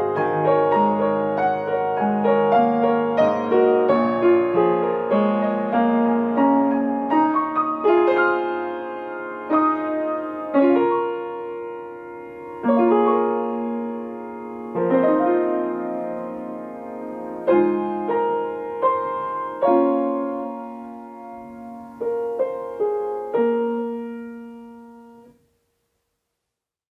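A solo piano plays a slow piece, the notes growing sparser; a final chord rings and fades out about 25 seconds in.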